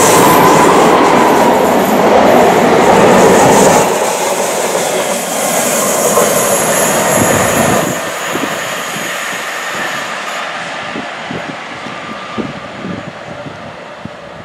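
SNCB Class 77 diesel locomotive hauling a train of locomotives past at close range: a loud rush of engine and wheel noise that eases after about four seconds and fades away, leaving a clatter of wheel clicks over the rail joints as the train recedes.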